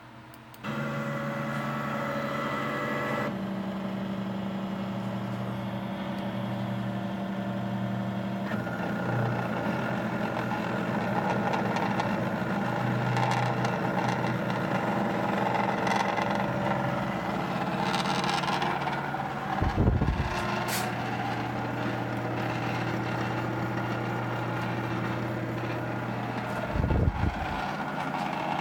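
NEMA stepper motors of a DIY four-axis CNC hot wire foam cutter starting a cut about a second in: a steady whine of several tones that shifts pitch as the axes change speed. Two short low thumps come near the end.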